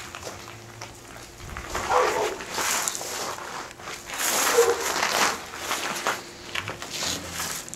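Small loose gravel crunching and rattling in a run of short, irregular scrapes as a baby's hands and legs shift through it.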